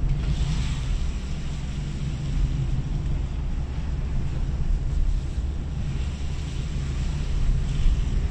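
Car driving along a wet street, heard from inside the cabin: a steady low engine and road rumble with tyre hiss off the wet surface.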